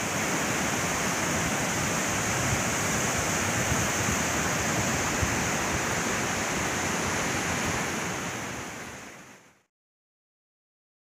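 Steady rushing of a swollen, silt-laden mountain river in spate, the Alaknanda at Badrinath. It fades out near the end, leaving silence.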